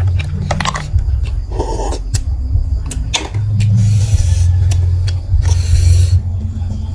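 Eating a plate of stir-fried snails close to the microphone: sharp clicks and scrapes of snail shells and utensils, with short crackly slurping and chewing noises, loudest about four to six seconds in, over a steady low rumble.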